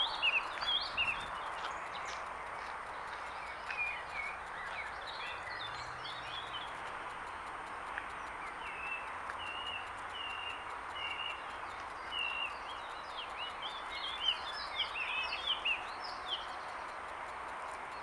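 Several songbirds singing and chirping in the trees, with a run of short repeated notes about halfway through and busier twittering later on, over a steady background rush.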